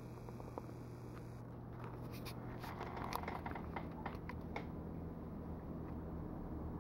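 Steady low hum of reef-aquarium equipment, with a scatter of light clicks and rustles from the camera being handled and moved between about one and a half and four and a half seconds in.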